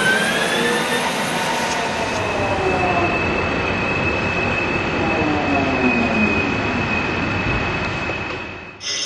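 Machine tool running with a steady high-pitched whine over a rushing noise, with a few sliding pitches, until the sound cuts off abruptly near the end.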